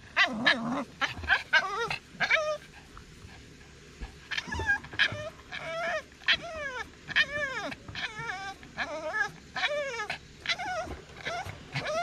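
Boston terrier whining and yipping in short, high-pitched cries, one or two a second, with a pause of about a second and a half near the third second. The dog is eager for the ball being held up.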